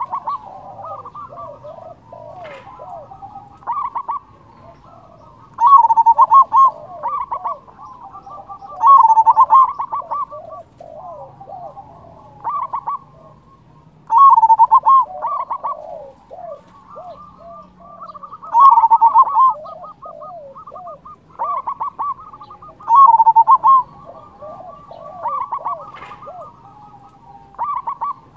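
Zebra dove (perkutut) cooing: loud song phrases repeated every two to four seconds, with softer, quicker falling coos between them.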